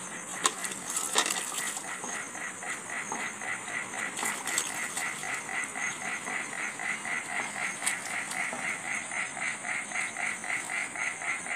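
Outdoor animal chorus: a rhythmic call pulsing about four times a second over a steady high-pitched drone, with a few sharp clicks in the first half.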